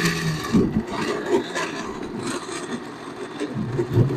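Countertop blender running on a jar of chopped produce and water, the mix churning with uneven scraping and knocking.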